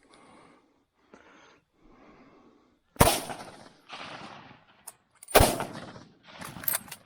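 Two gunshots about two and a half seconds apart, each a sharp crack with a short trailing echo, after a few seconds of faint rustling.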